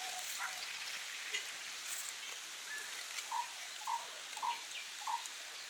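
Outdoor ambience: a steady hiss with faint scattered chirps, and a small animal's short call repeated four times, about half a second apart, in the second half.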